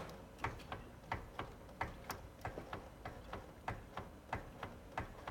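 Repeated sharp clicks, about three a second, from a wheel assembly with play in it as the wheel is rocked and loaded: the knock and play of a worn part.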